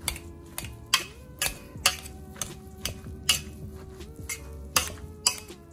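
Metal potato masher mashing boiled potatoes in a stainless steel pot, knocking sharply against the pot about twice a second. Background music with held notes plays underneath.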